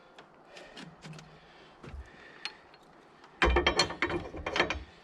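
Metal clanks and rattles of a rear snowblower's PTO shaft and three-point hitch parts being handled, with a few light clicks and then a loud run of clanking about three and a half seconds in.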